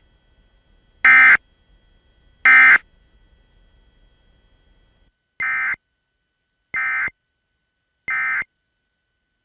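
Emergency Alert System end-of-message signal: short two-tone digital data bursts (SAME code) sent three times in a row, about a second and a half apart, marking the end of the alert. After a brief pause, a second, quieter set of three end-of-message bursts follows at the same spacing.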